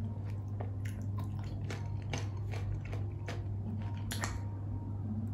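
Close-up mouth sounds of chewing raw shrimp and garlic: irregular wet clicks and smacks about twice a second, with a sip of dipping sauce from a glass about four seconds in. A steady low hum runs underneath.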